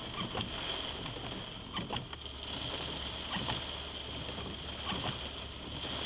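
Rain falling on a car's roof and windshield, heard from inside the car: a steady hiss with irregular taps. A low hum comes in about two seconds in.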